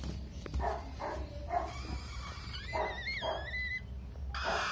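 Young parrot chicks calling: short rough calls repeated about twice a second, a wavering whistle-like note about halfway through, and a louder, longer call near the end.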